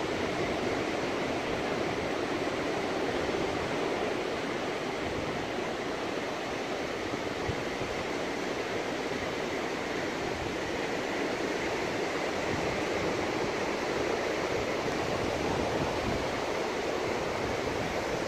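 Steady, even rush of ocean surf, with no separate wave crashes standing out.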